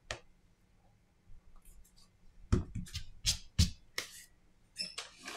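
Hands handling a smartphone and tools on a silicone repair mat. A click as the phone is set down comes first, then a run of sharp taps and knocks, with a quicker cluster of clicks near the end.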